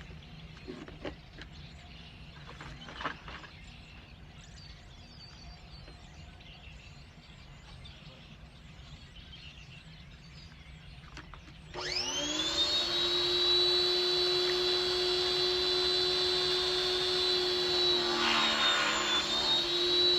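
Quiet outdoor background with a couple of small clicks, then about two-thirds of the way in a small 1700 PSI pressure washer starts up suddenly and runs with a steady high whine. Near the end a hiss joins the whine.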